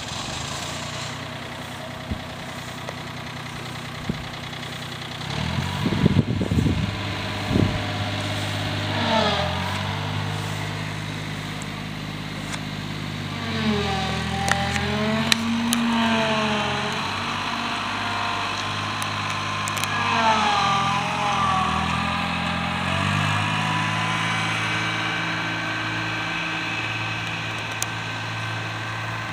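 An engine running, its pitch dipping and rising several times as it slows down and speeds up. A few low knocks come around six to seven seconds in.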